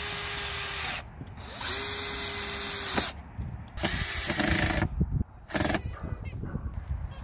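Cordless drill driving screws into the corner of a 2x4 frame: three steady runs of about a second each, then a brief blip about five and a half seconds in.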